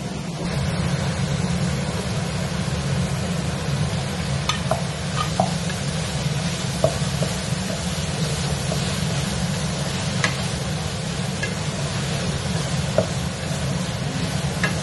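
Mushrooms and tomatoes sizzling in a frying pan while a spatula stirs them, with scattered scrapes and taps of the spatula against the pan, over a steady low hum.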